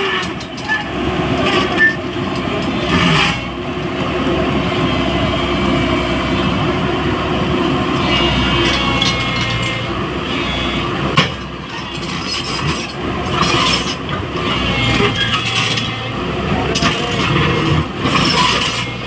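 JCB 205 tracked excavator's diesel engine running steadily under load as it works, with brief dips and a faint high hydraulic whine at times.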